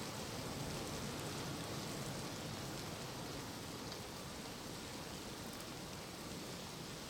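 Steady outdoor background hiss with a few faint scattered ticks; no bird calls stand out.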